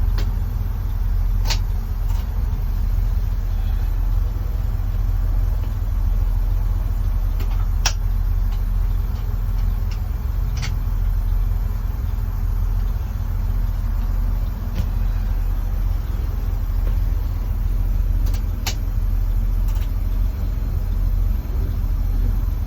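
1950 Chevrolet truck's inline-six engine idling with a steady low drone, and a few sharp clicks of dashboard knobs and switches being tried as the wiper control is hunted for.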